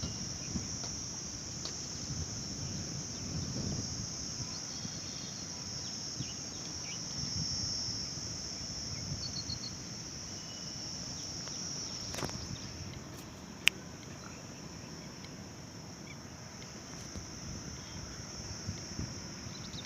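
Insects trilling in a steady, high-pitched chorus over a low, rumbling outdoor noise, with one sharp click about two-thirds of the way through.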